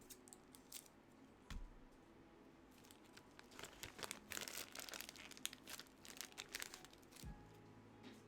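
Faint crinkling and light clicks of small pieces and plastic being handled, busiest from about three and a half to six and a half seconds in.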